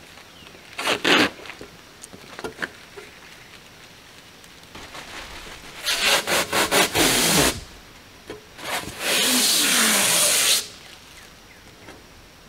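Protective plastic film being ripped off a polycarbonate roof panel: a short rip about a second in, then two long peels, one choppy at about six to seven and a half seconds and one steady at about nine to ten and a half seconds.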